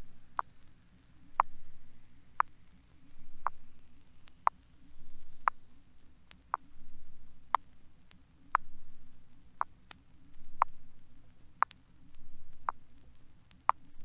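Test-record frequency sweep: a pure sine tone gliding up from 5,000 to 10,000 cycles, levelling off at 10,000 about two-thirds of the way through and cutting off just before the end. Soft ticks come about once a second beneath it.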